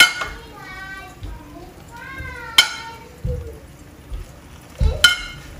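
Banh xeo batter sizzling softly in a nonstick pan, with three sharp clinks of a metal measuring cup against the pan. A high-pitched voice makes drawn-out, wordless sounds.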